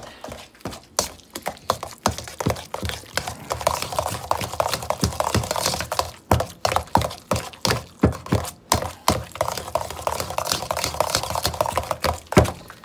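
Potato masher pounding and scraping soft mashed potato against a stainless steel mixing bowl: a quick, irregular run of sharp knocks, two or three a second.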